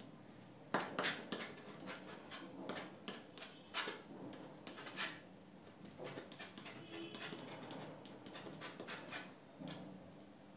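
Palette knife scraping and dabbing paint onto a stretched canvas in short, irregular scratchy strokes, the loudest about a second in.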